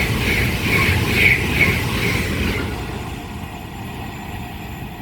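Avanti West Coast Class 390 Pendolino electric train passing at speed, its wheels beating about twice a second, then fading as the tail of the train goes away from about halfway in.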